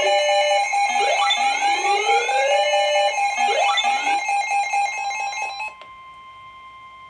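Electronic Emergency Alert System alert tones for a severe thunderstorm warning: a steady tone under rising sweeps that repeat about once a second. Near six seconds in they drop to a quieter steady tone.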